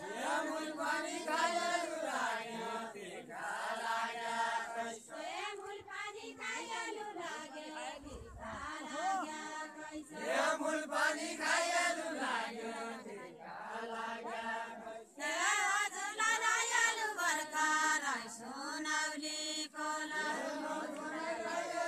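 A group of villagers singing a Deuda folk song together without instruments, in sung phrases of a second or two with short breaks between them.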